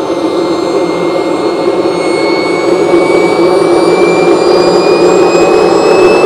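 Kingtech K-320 model jet turbine in a Pilot RC Viper running on the ground: a steady loud rush with a thin high whine that rises slowly in pitch from about two seconds in as the turbine spools up.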